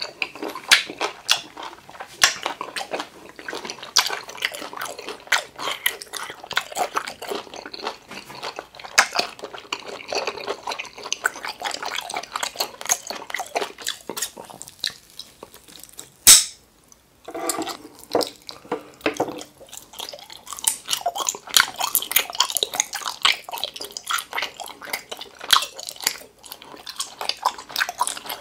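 Close-miked wet chewing, smacking and slurping of octopus and gummy jelly, a steady stream of quick sticky mouth clicks. About sixteen seconds in, a single sharp snip of scissors cutting through a jelly tentacle.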